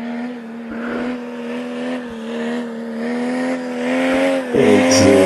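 Off-road vehicle engine held at high revs, a steady note slowly growing louder. About four and a half seconds in, a second, lower engine note joins and it gets louder.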